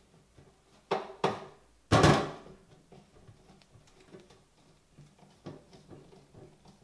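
Clicks and knocks from the cover of an American Rotary ADX phase converter control panel being handled and its screws started by hand: two sharp clicks about a second in, a louder knock a moment later, then faint small ticks.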